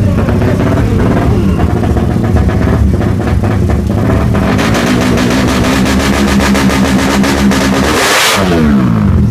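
Tuned Suzuki Satria FU motorcycle engine, bored out to 200cc, revving hard. About eight seconds in there is a short hiss, then the pitch falls steeply as the revs drop.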